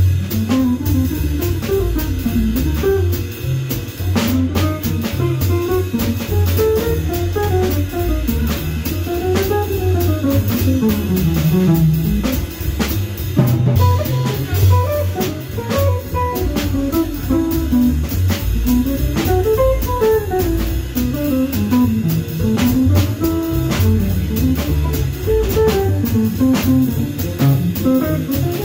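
Live jazz: an archtop electric guitar solos in quick running lines that climb and fall, over double bass and a drum kit keeping time.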